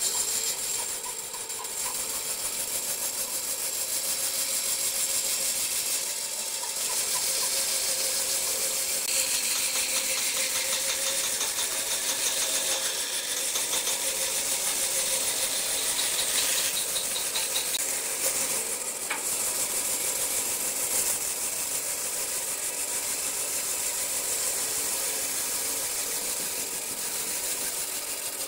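Bandsaw cutting through a thick block made of stacked wood strips, a steady cutting noise as the block is fed into the blade.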